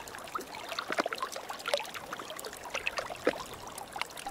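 Water trickling and splashing lightly, with irregular small plinks and gurgles.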